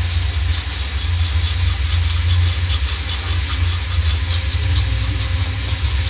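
Loud, steady hissing noise over a deep, constant rumble. It starts and stops abruptly with the shot.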